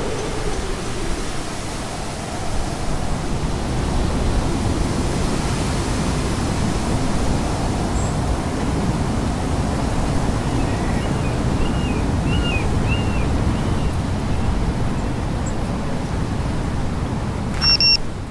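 Steady rushing wind noise from fast, low flight, with a few faint chirps in the middle and a short high beep near the end.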